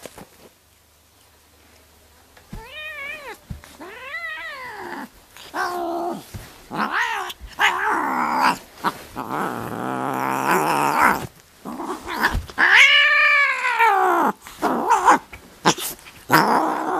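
Domestic cat yowling and growling in a run of drawn-out, wavering calls while it wrestles with a hand. The calls start about two and a half seconds in and grow louder and longer, with the longest, loudest yowl near the end.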